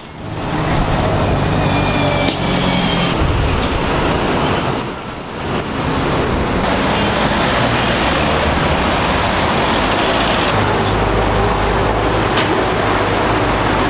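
Busy city street traffic: buses, cars and a lorry running past with a steady engine hum and tyre noise. There is a high-pitched squeal for about two seconds around five seconds in, and a deeper engine rumble from a heavy vehicle near the end.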